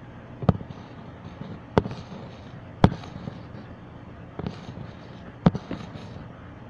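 Four sharp knocks at uneven gaps, with a fainter one between, over a low steady background.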